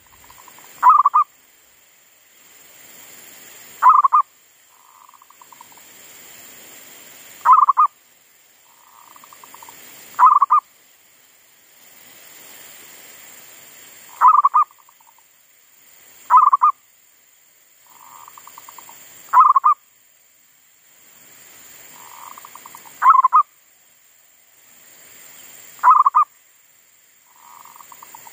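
Zebra dove (perkutut) cooing its song: a short, loud coo repeated about every three seconds, nine times, several of them led in by a soft rolling trill. It is the caged decoy bird singing again after it had stopped following a wild monkey's disturbance.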